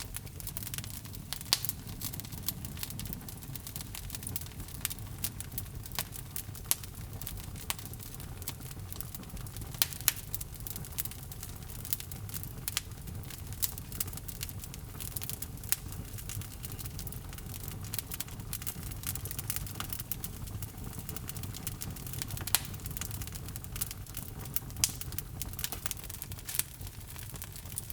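Wood logs burning in a fireplace, crackling and popping irregularly over a steady low rumble of flame.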